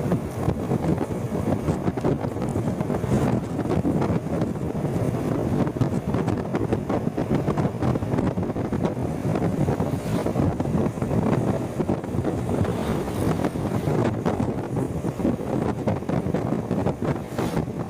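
Wind buffeting the microphone of a rider on a moving motorcycle: a steady, rumbling rush that swamps everything else, with road and traffic noise underneath.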